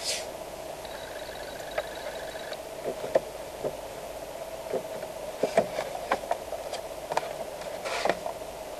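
Car engine idling steadily while the car stands still, heard from inside the cabin. A faint high tone comes and goes twice in the first few seconds, and scattered clicks and knocks follow in the second half.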